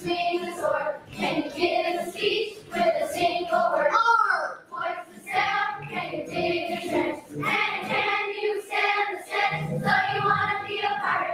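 A children's choir singing together in a large hall.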